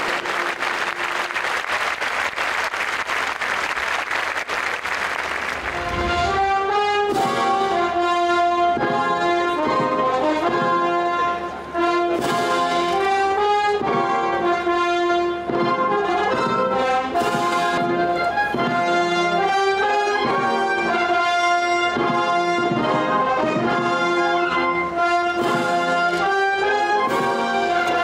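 Crowd noise for about the first six seconds, then a uniformed military band with prominent brass starts playing, with long held notes.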